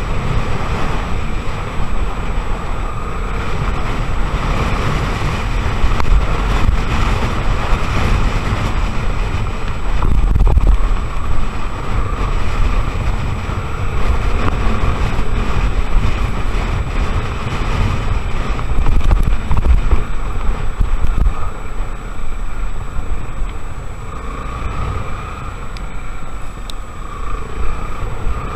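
A Honda XR 250 Tornado trail motorcycle's single-cylinder engine running while riding, largely covered by heavy wind buffeting on the microphone.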